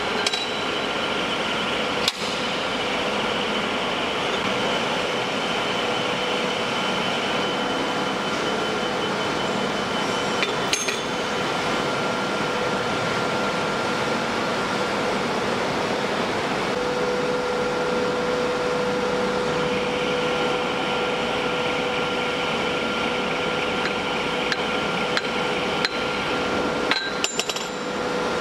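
Steady hum of workshop machinery with a few sharp metallic clinks of steel tools against the tricone bit and chuck, a cluster of them near the end.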